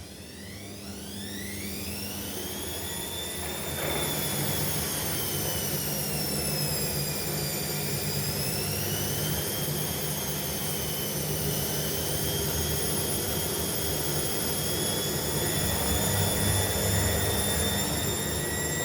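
Indesit washing machine motor winding up into a spin with an unbalanced load: a whine rises steadily in pitch for about four seconds over a low drum rumble, dips in speed around halfway, then picks up again and holds.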